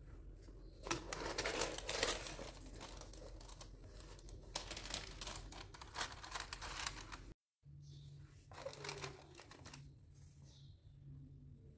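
Tissue paper rustling and crinkling as a cardboard mailer box is opened and its wrapping folded back, loudest about a second or two in. After a brief cut, a shorter rustle as a sheet of paper stickers is lifted out.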